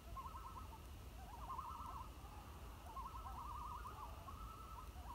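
Common loons giving tremolo calls across the lake at night: fast wavering phrases, repeated over and over, several overlapping.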